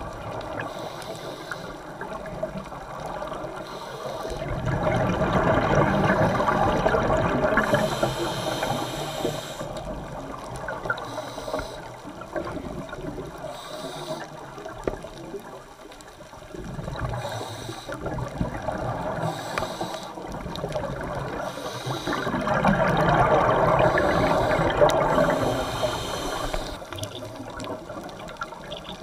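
Scuba regulator breathing heard underwater: two long gurgling rushes of exhaled bubbles, each lasting a few seconds, with quieter hissing between them.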